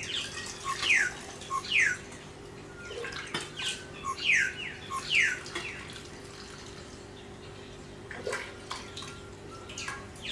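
A bird calling: sharp falling whistled notes, mostly in pairs, in three bouts over a faint steady hum.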